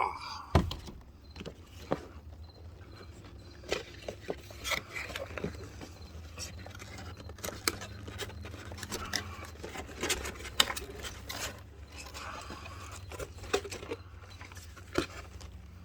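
Packaging being handled: irregular plastic crinkles, taps and clicks as the box contents are lifted and sorted, over a faint steady low hum.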